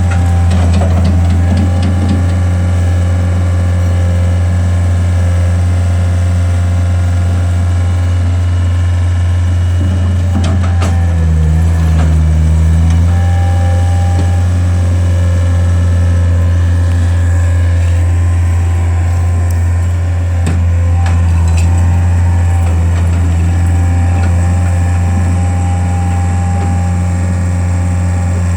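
Skid steer engine running steadily with a deep hum, its pitch shifting briefly about midway, with a higher whine coming and going and a few knocks.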